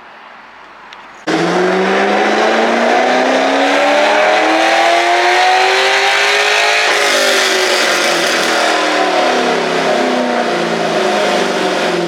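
A car engine under hard load, coming in suddenly about a second in, climbing steadily in pitch for about five seconds and then falling back as it comes off the throttle, as in a full-throttle pull on a dyno or the road.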